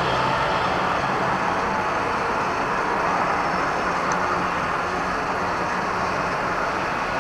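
Electric go-kart driving at speed on a concrete track, heard from on board. There is a steady rush of tyre and wind noise with a faint motor hum underneath.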